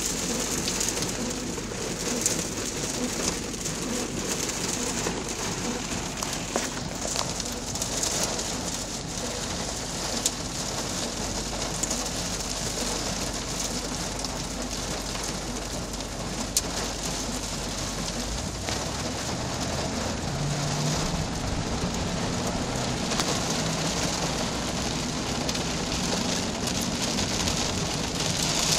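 Heavy thunderstorm rain pelting a car, heard from inside as a steady hiss with scattered sharp drop hits, growing a little louder near the end.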